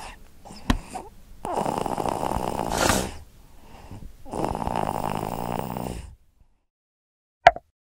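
Cartoon-style snoring sound effect: two long snores, then a short sharp sound near the end.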